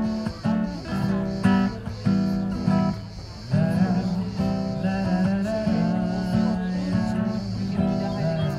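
Acoustic guitar music: strummed chords in a steady rhythm, with a singing voice coming in over them about three and a half seconds in.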